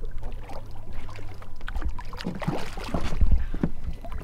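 Water splashing and sloshing at the side of a boat as a hooked permit thrashes at the surface and is reached for by hand, with a steady low rumble underneath.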